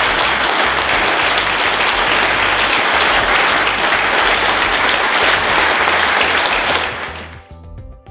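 Audience applauding: a dense, steady clatter of many hands clapping that fades away about seven seconds in as music comes in.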